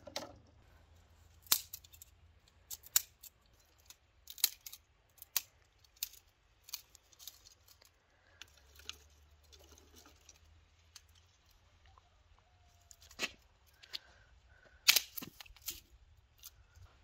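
Dry twigs being snapped by hand, a string of sharp, irregular cracks with a quieter stretch in the middle and the loudest crack near the end.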